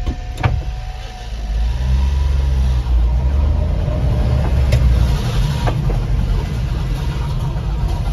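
1993 Honda Acty kei truck's small three-cylinder engine pulling away and accelerating in gear, heard from inside the cab, with a sharp click from the gear lever about half a second in.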